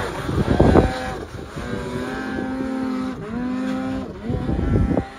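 Snowmobile engine revving hard as the sled climbs through deep powder, its pitch rising, holding, dipping briefly about three seconds in and climbing again as the throttle is worked.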